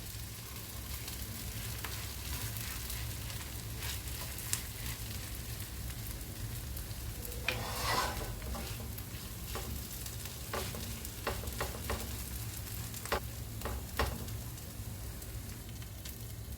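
Grated-potato hash browns frying in butter in a pan, a steady sizzle, with scattered clicks of a utensil against the pan and a low steady hum underneath.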